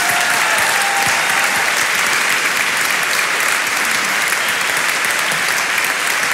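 Audience clapping steadily, a dense continuous applause.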